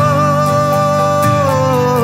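A man singing a long held note over a strummed acoustic guitar; the sung note steps down in pitch in the second half.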